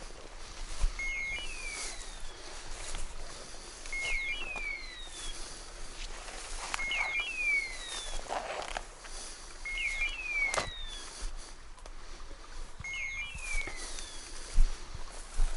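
A setter's electronic beeper collar repeats the same signal about every one and a half seconds: a short stepped beep and then a falling whistle. Footsteps push through dry brush underneath, with a sharp crack about ten and a half seconds in.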